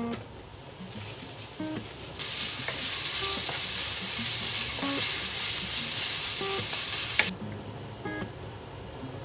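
Ground pork sizzling loudly in hot oil in a frying pan as it is stirred with a wooden spatula. The sizzle starts suddenly about two seconds in and cuts off abruptly about two seconds before the end.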